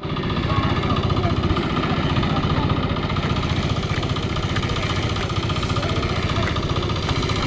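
An engine running steadily at an even, rapid beat, as if idling.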